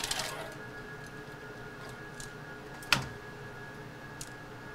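Microfilm reader being operated: a whir fading out at the start, then a steady hum with a few sharp clicks from its controls and film carrier, the loudest about three seconds in.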